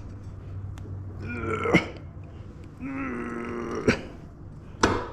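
A man's strained vocal effort sounds as he forces a tight-fitting wheel and spacer into place: a short bending groan, then a held groan about a second long. Sharp metallic clicks come between them and near the end.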